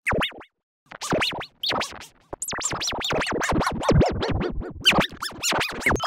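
A synthetic teleport sound effect: a fast run of zipping pitch glides sweeping up and down several times a second, with a short gap near the start.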